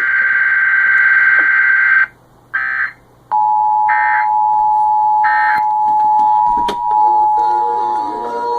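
Emergency Alert System tones: a harsh burst of digital data screech, a few short repeats of it, then the steady two-tone EAS attention signal starting about three seconds in and sounding to the end.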